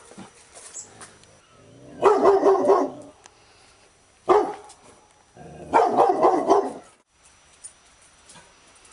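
Labrador retriever barking in three bouts: a quick run of barks about two seconds in, a single bark a little after four seconds, and another quick run around six seconds.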